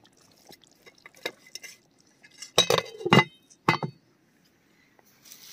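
Metal ladle and pot lid clanking against a large metal cooking pot: a few light taps, then a cluster of louder clanks with brief ringing about two and a half to four seconds in.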